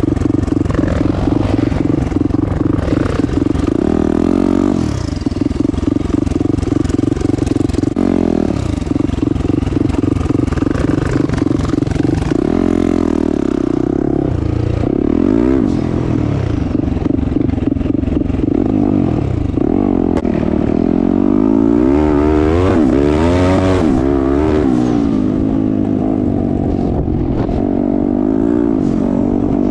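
Turbocharged 2021 Yamaha YZ450F's single-cylinder four-stroke engine running under way, its pitch climbing and dropping back several times as the throttle is opened and eased off.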